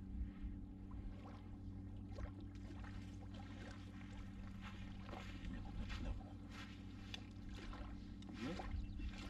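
Steady low drone of a motor running, with faint scattered clicks and handling rustles over it and a brief rising squeak near the end.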